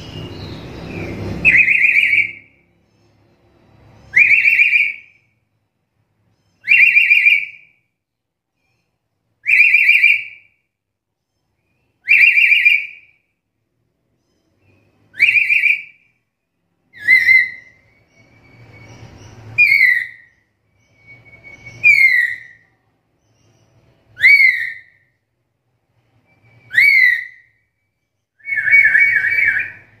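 Black-capped lory calling: a loud, high, whistle-like call repeated about every two and a half seconds. The later calls start with a quick upward sweep, and the last one is longer and doubled.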